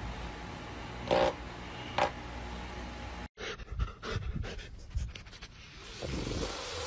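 Pedestal electric fan running with a steady hum while a dog makes two short vocal sounds into it, about a second and two seconds in. After a cut, a dog sniffs and snuffles with its nose in a hole in grassy dirt, with quick short scratchy sounds.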